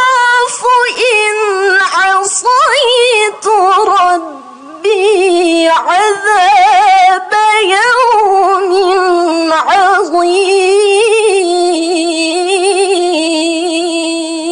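A teenage girl's solo Quran recitation in the melodic tilawah style: long, ornamented phrases that waver and glide in pitch, with a short break for breath about four seconds in. From about ten seconds in she holds one long note with a fast vibrato.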